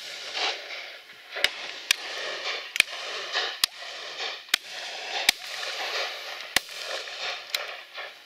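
Shotguns firing at driven partridges: eight sharp single reports, spaced irregularly about half a second to a second and a half apart.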